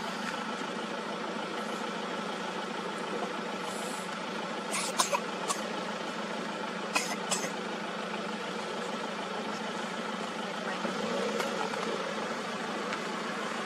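Vehicle engine idling steadily, with a few sharp clicks about five and seven seconds in.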